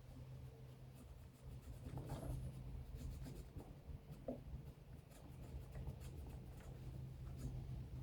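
Faint scratching and light clicks of small trimmer carburetor parts and a gasket being handled, over a steady low hum.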